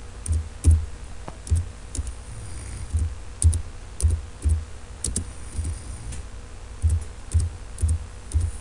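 Computer keyboard keystrokes: slow, uneven typing, one key at a time with short pauses between. Each press is a sharp click with a low thud.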